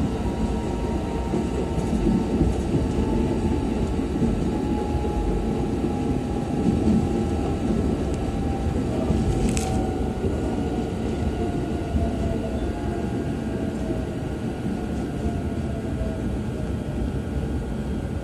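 Running noise heard inside a JR East E129 series electric train: a steady rumble of wheels on rail, with a motor whine that falls slowly in pitch as the train slows on its approach to a station. A single sharp click comes about halfway through.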